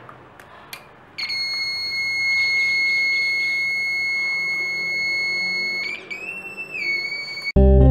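After a couple of faint clicks, a small DC buzzer on a 9V battery sounds a steady high-pitched tone. Near the end it wavers and briefly rises in pitch before dropping back and cutting off.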